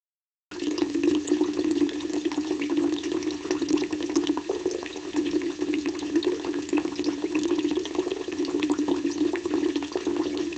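Fish grilling: a steady sizzle full of quick, irregular crackles and pops. It starts abruptly about half a second in.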